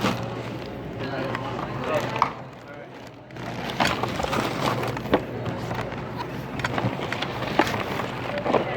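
Indistinct voices at a store checkout, with occasional sharp clicks and knocks of items being handled, over a steady low hum.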